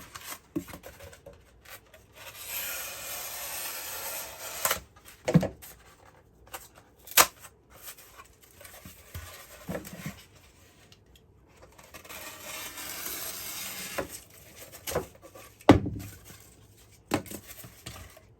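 Hand trimming of insulation board: two long stretches of scraping, cutting strokes a few seconds each, with several sharp knocks in between.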